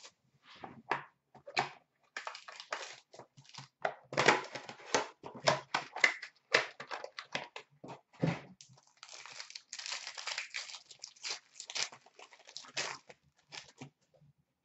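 Plastic wrapping on a sealed hobby box of trading cards and the foil card pack inside crinkling and tearing as they are opened: irregular crackles and rustles, densest around the middle.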